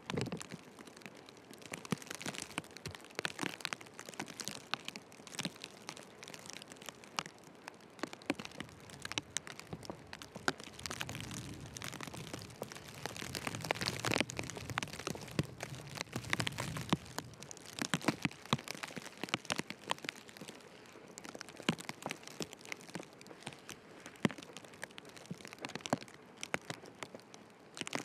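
Footsteps crunching in fresh snow, many irregular crisp crunches over a steady hiss of wind-driven snowfall. A low wind rumble swells and fades in the middle.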